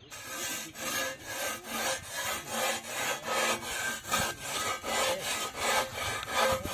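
Long-handled flat metal blade scraping the singed, charred skin of a pig carcass, rasping off the burnt bristles and soot in quick repeated strokes, about three a second.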